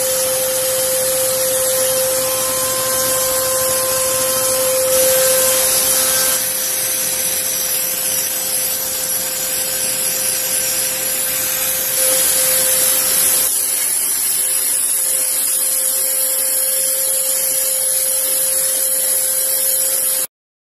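Ozone steam cleaner blasting steam into an air-conditioner's coil: a loud, steady hiss over a constant whine from the machine. The hiss changes in character about six seconds in and again around thirteen seconds.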